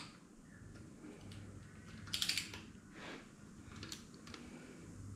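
Faint light clicks and taps, the loudest cluster about two seconds in and another near four seconds, over a low steady hum.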